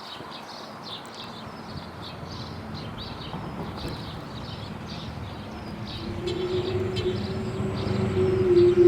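Sterling Model M outdoor warning siren with an 8/16-port rotor in a custom housing: its steady tone comes in about six seconds in and grows louder. Small birds chirp throughout.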